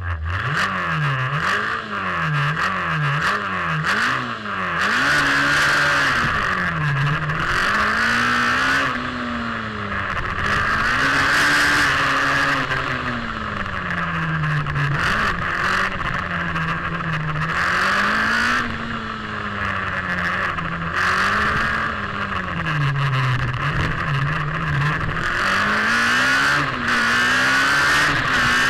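Open-wheel single-seater race car's engine heard from on board, pulling away with quick upshifts in the first few seconds, then revving up and down again and again as it accelerates and brakes through a slalom course.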